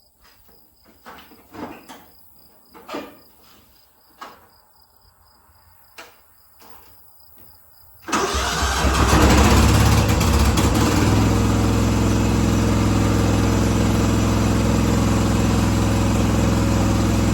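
Several light knocks, then about eight seconds in a small riding-mower engine starts at once and settles into a steady run.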